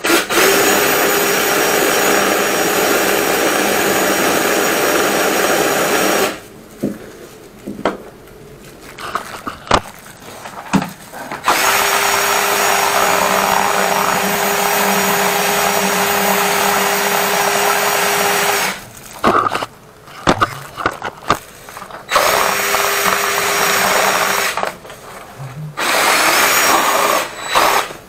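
Drill-driven flex-shaft drain cleaner spinning its cable down a blocked urinal drain pipe. It runs in four spells of several seconds with a steady hum, stopping about six seconds in and starting again twice more after short pauses.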